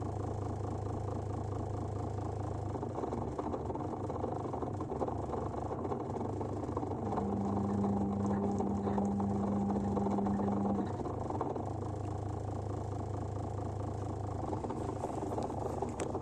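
Zanussi washing machine's drain pump humming without stopping: the owner finds that it keeps pumping all the time and the washing comes out wet. A low steady hum gives way about three seconds in to a rougher sound. From about seven to eleven seconds a higher, louder hum sounds, then the low hum returns.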